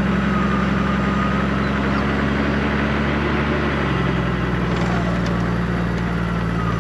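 Toyota Hilux engine running steadily, with a thin high whine over it. The engine note shifts slightly about four seconds in.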